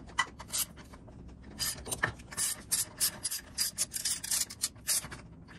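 Socket ratchet clicking in short strokes, about three a second, as it turns the centre screw of a gear puller that is drawing the clutch gear off its shaft.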